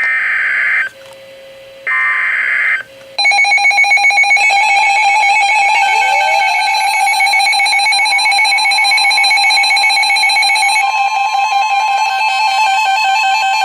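Emergency Alert System SAME data bursts, harsh digital screeches about a second long, heard twice, as the coded header that opens a new weather radio alert. From about three seconds in, a loud, continuous electronic alert tone with a rapid pulsing texture follows.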